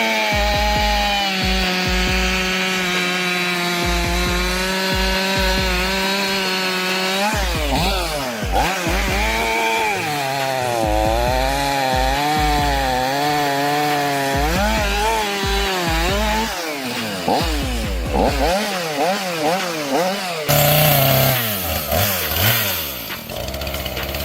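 Chainsaw running at high revs and cutting into wood, its engine note dipping and wavering as the chain bites. About twenty seconds in the sound changes to a lower engine note that drops in pitch, with more hiss on top.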